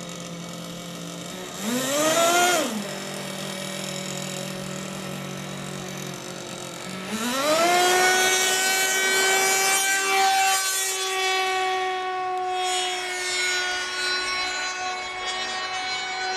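Small two-stroke model aircraft engine with a tuned exhaust pipe, on an RC delta wing, idling, then revved briefly to a high whine and back about two seconds in. About seven seconds in it is run up to full throttle and holds a steady high-pitched whine as the plane is hand-launched and flies off.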